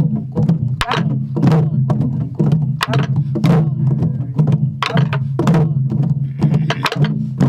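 A pansori buk (Korean barrel drum) playing the jajinmori rhythm, struck with a stick and the bare hand. Sharp clacks of the stick on the wooden shell mix with deeper strikes on the drumhead, in an uneven pattern of about one or two strokes a second, over a steady low hum.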